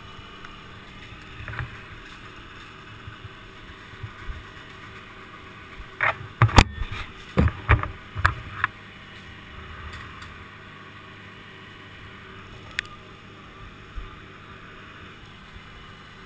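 A cluster of sharp wooden knocks and clatters about six to nine seconds in, as a rigged section of pine and the climbing gear bump against the trunk and helmet, over a low steady background hum.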